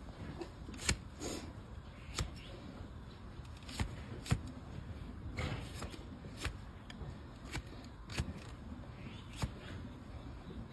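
A hoof-trimming blade cutting and scraping a donkey's overgrown hoof horn: short, crisp cuts and scrapes at irregular intervals, roughly one a second.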